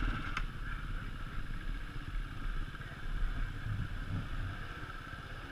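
Trail motorcycle engines: one ticking over close by, and another bike's engine fading as it rides off down the track. A single click about half a second in.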